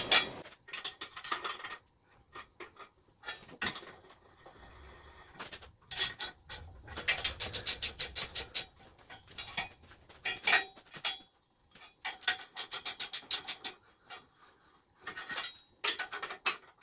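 Ratchet wrench clicking in quick runs, several bursts with pauses between, as the leveling bolts in the steel welding-table plates are turned.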